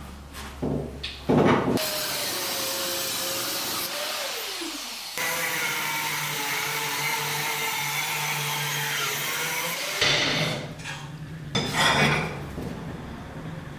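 Angle grinder with an abrasive cut-off disc cutting through the steel of an old cleaver blade: a loud, steady hiss over the motor's whine. The whine sags about four seconds in, picks up again a second later, and stops near ten seconds, followed by a couple of knocks of metal being handled.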